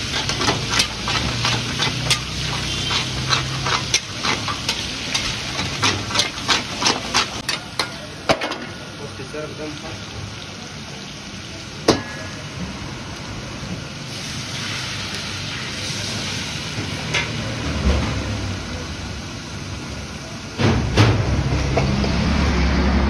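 Mutton karahi frying in a steel karahi wok, stirred with a metal ladle that clinks and scrapes against the pan many times over the first eight seconds or so. A single clank follows a few seconds later as the lid goes on, then a softer steady sizzle; near the end a louder low rumble sets in.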